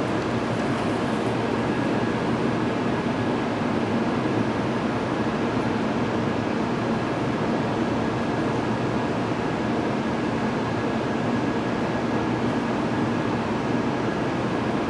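Steady hum of a stationary N700-series Shinkansen train standing at a station platform, its onboard equipment running, with a faint steady high tone over the noise.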